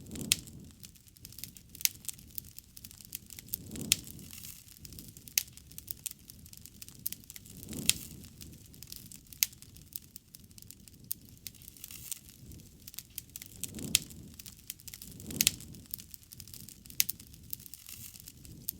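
Wood campfire burning: sharp irregular crackles and pops from the burning wood over a low rushing sound of the flames that swells every few seconds.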